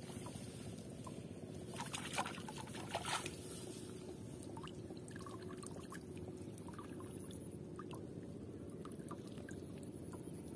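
Water trickling and splashing as a cage fish trap is lifted out of shallow paddy water, with a few sharper splashes about two and three seconds in.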